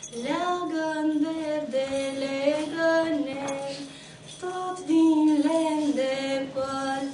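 A woman singing solo without accompaniment, in slow, long-held notes, with a short breath pause a little past halfway.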